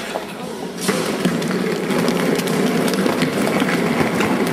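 Wheels of many rolling suitcases rattling over a paved street, with scattered small clicks and knocks. The sound swells about a second in and then holds steady.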